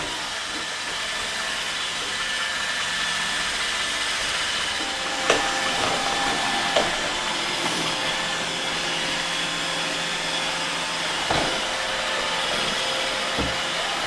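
iRobot Roomba 880 robot vacuum running: a steady, quiet whirr of its suction motor and brushes, with a few short knocks about five, seven and eleven seconds in.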